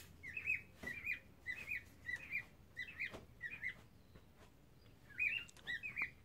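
Cockatiels chirping in a steady run of short, repeated calls about twice a second, falling silent briefly midway, then resuming.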